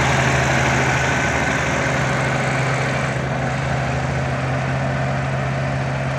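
A small ride-on road roller's engine running steadily close by, with a constant low hum.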